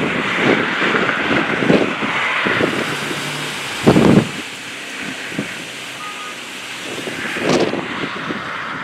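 Strong gusty wind rushing for the first few seconds, then easing, with sudden loud wind buffets on the microphone about four seconds in and again near the end.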